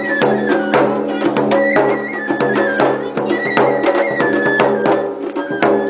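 Japanese festival music: an ōdaiko (big taiko drum) struck in a quick, steady rhythm, with a high melody falling in short steps that repeats over the drumming.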